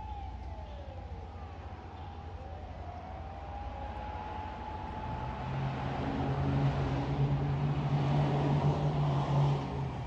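Distant fire engine sirens wailing, several overlapping and gliding up and down in pitch, then one steady siren tone. From about halfway in, a car passing on the road below grows louder with engine hum and tyre noise, then drops away just before the end.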